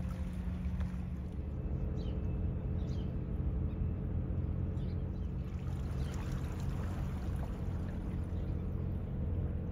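Steady low drone of a vessel's engine with a wash of water noise, and a few faint, short, high falling chirps.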